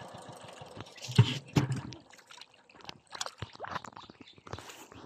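Hands squelching and splashing in soft wet mud and shallow muddy water, a run of irregular wet slaps and drips, loudest a little over a second in.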